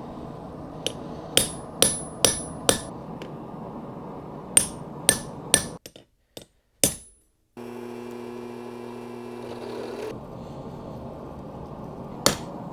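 Hammer striking hot steel on an anvil while forging blacksmith tongs: sharp ringing blows in short runs, over a steady background rush. For a couple of seconds past the middle a low steady hum comes in.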